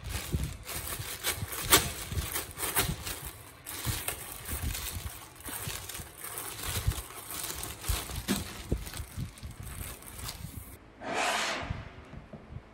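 Thin plastic bread bag crinkling and rustling with many sharp crackles as it is handled and opened. The crinkling cuts off suddenly near the end, and a short smooth swish follows.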